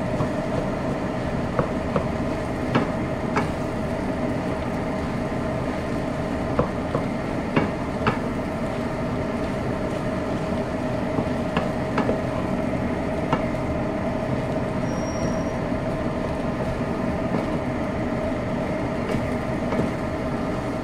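Wooden spatula stirring and tossing rice in a frying pan, with scattered light clicks as it taps and scrapes the pan, over a steady hum.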